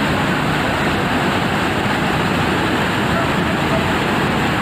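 Fast-flowing floodwater rushing in a torrent: a loud, steady, even roar.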